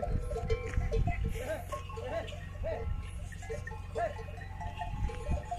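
Herd animals calling: many short rising-and-falling bleats, one after another, over a steady background of tones.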